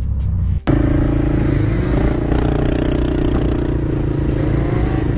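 ATV engine running steadily on a dirt trail, with some clatter and scrape from the riding. Under a second in the sound cuts abruptly from a low engine-and-wind rumble to a steadier, higher engine hum.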